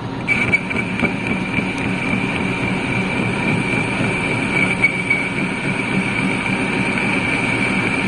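1973 Harrison lathe running while a boring bar cuts inside the end of a steel baler roller tube. A steady high-pitched ring sets in just after the start and holds through the cut.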